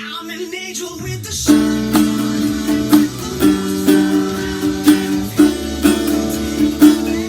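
Instrumental music led by an acoustic guitar, with no singing. Held notes give way to a rising slide about a second in, then a fuller passage with a steady beat accented about twice a second.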